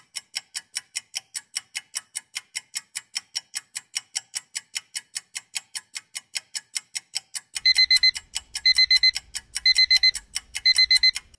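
Countdown-timer sound effect: a steady clock ticking, about four ticks a second. Near the end a digital alarm beeps in four short bursts, about one a second, signalling that the time is up.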